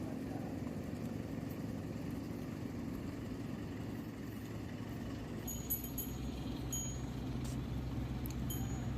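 Steady low rumble of a running motor that becomes a deeper, even drone about five and a half seconds in, with a few short, light chime-like clinks over the last few seconds.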